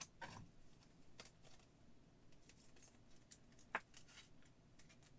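Near silence with faint rustles and small clicks of trading cards and card-pack wrappers being handled, with one sharper click about three-quarters of the way through.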